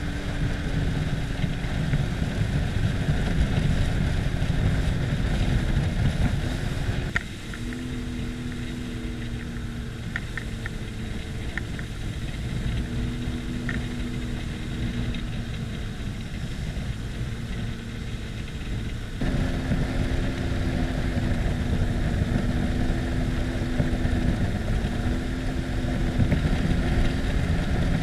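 Sea-Doo jet ski engine running under way, a steady drone over the rush of wind and spray. About seven seconds in the rushing falls away and the engine hum stands out more, until the rush comes back suddenly about nineteen seconds in.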